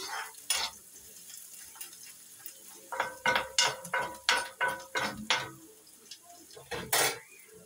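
Steel ladle scraping and knocking against a kadhai as onions are stirred and fried in hot oil, over a faint sizzle. One stroke comes early, then a quick run of strokes, about three a second, in the middle, and one loud knock near the end.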